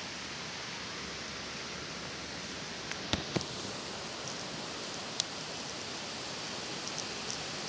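Steady outdoor hiss with a few sharp clicks, the loudest two about three seconds in: a young hedgehog chewing its food.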